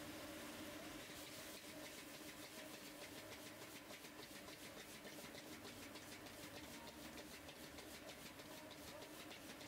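Rapid, regular tapping, several strokes a second, over a steady low hum; the tapping starts about a second and a half in and stops near the end.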